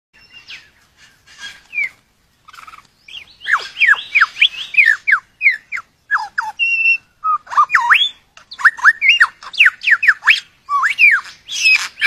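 Male superb lyrebird singing its courtship display song: a rapid string of sharp whistled notes sweeping down and up, faint at first and loud from about three seconds in.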